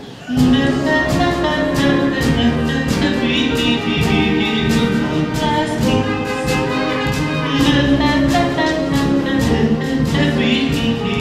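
Live show music from a musical's band, upbeat, with sustained notes over a steady beat of about three strikes a second. It starts suddenly a moment in.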